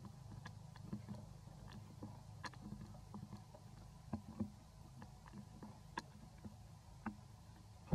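Low steady rumble with scattered small clicks and ticks, a few sharper ones around the middle; no animal calls.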